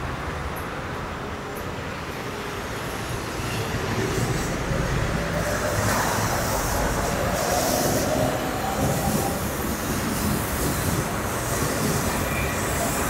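Electric commuter train moving along a station platform, growing louder from about four seconds in, with a hiss high up from the wheels and rails.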